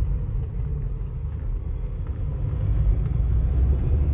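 Steady low rumble of a 2008 Renault Sandero 1.0 16-valve's engine and road noise, heard inside the cabin, with no clear knock from the steering.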